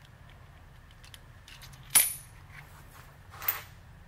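Two sharp metal clinks about a second and a half apart, the first louder with a brief high ring, over a faint steady low hum: metal tools or clamp hardware being handled on a milling machine's table.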